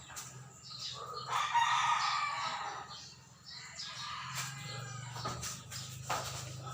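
A loud bird call, one long call starting about a second in and lasting about a second and a half, with shorter chirps around it.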